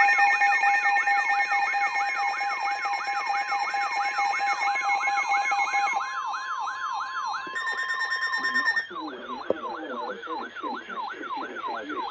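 Electronic siren yelping, a rising sweep repeating about two and a half times a second, layered with steady electronic alert tones. One tone stops about six seconds in and another near nine seconds.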